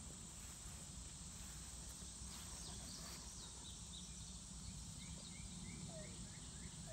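Quiet outdoor ambience: a steady high-pitched insect buzz, with a run of faint quick chirps in the middle seconds.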